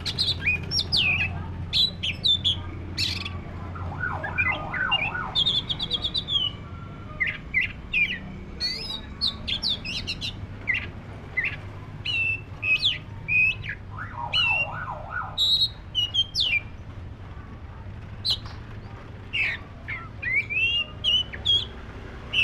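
Oriental magpie-robin (kacer, black-breasted form) singing a varied run of short whistled notes and slurred glides. Bursts of lower, rapid chattering notes come about four seconds in and again about fourteen seconds in. A faint low hum runs underneath.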